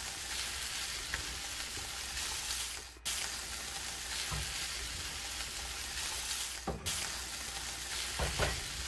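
A skillet of chili sizzling and hissing steadily while a wooden spoon works through it, with a few soft low knocks. The hiss breaks off abruptly twice, at about 3 and 7 seconds.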